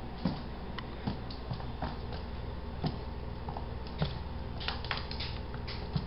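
Boston Terrier puppy's claws clicking irregularly on a hard wooden floor as it scampers about, with a quick run of clicks about five seconds in. A steady low hum runs underneath.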